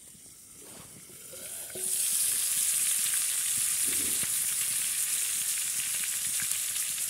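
Chicken drumsticks sizzling in a pan over a wood-fired camp stove: a steady frying hiss that comes in loudly about two seconds in and holds.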